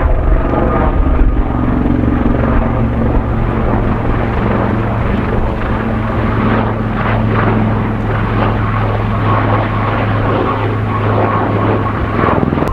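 Coast Guard helicopter's rotors and turbine running with a steady low hum, with strong wind buffeting the microphone.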